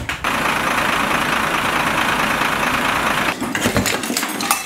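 A loud, steady rushing noise for about three seconds that starts and stops abruptly, followed by scattered clicks and light knocks near the end.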